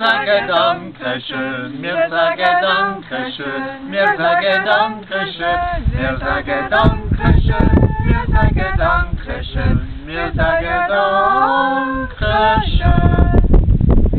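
A group of men and women singing together without accompaniment, some notes held long. A low rumble on the microphone joins about five seconds in.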